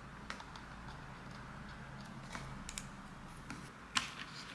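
Small scattered clicks and taps of a spatula working white filler paste into a gilded wooden frame's moulding and against a plastic bottle cap, over a low steady hum. The sharpest click comes about four seconds in.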